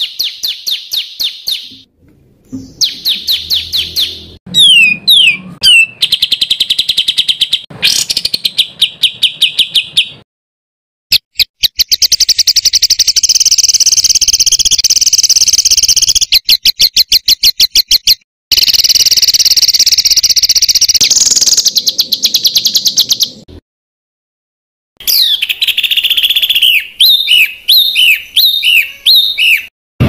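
Songbird song, edited into a tutor recording for caged birds to copy: loud phrases of very rapid, dense trills and repeated sharp notes, broken by short silences. Near the end come a string of quick downward-slurred whistles.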